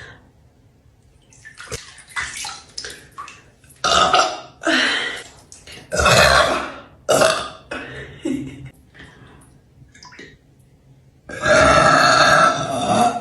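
A woman burping over and over, a string of short and drawn-out belches. After a brief pause comes the longest and loudest burp, near the end.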